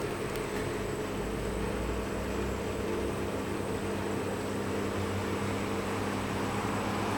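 1997 Bosch WFK2801 washing machine running an intermittent spin in its cottons 60 °C programme: a steady motor hum over a low drum rumble, the spin between washing and the softener rinse.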